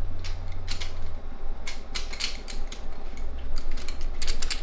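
Irregular metallic clicks and clinks of a socket and extension being worked on a spark plug of a Holden 308 V8, over a steady low hum.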